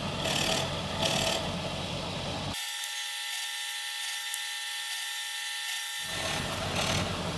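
Electric drill running as it bores small recesses into mitred wood, a steady whine with a rough drilling noise. Between about two and a half and six seconds in, the sound turns thin, with its low end gone.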